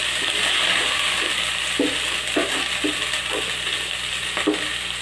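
Prawns sizzling in hot oil in a steel pot while a wooden spatula stirs them, with a few short knocks and scrapes of the spatula against the pot.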